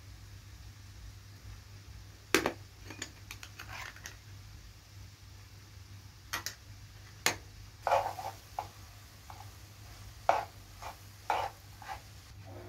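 A spoon and a plastic spatula tapping and scraping in a nonstick frying pan while a rice and herb filling is seasoned and stirred: a sharp tap about two seconds in, then scattered groups of lighter knocks through the middle and near the end.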